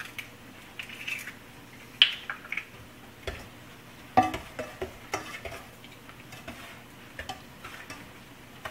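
Wooden spoon stirring a thick butter, brown sugar and egg mixture in a stainless steel saucepan, knocking and scraping against the pan in irregular clicks, the sharpest about two seconds and four seconds in.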